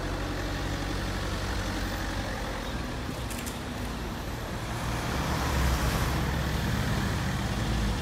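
Road traffic moving off across a reopened level crossing: a van and then a car pulling away and driving past, engines and tyres, growing louder about five seconds in as a car passes close.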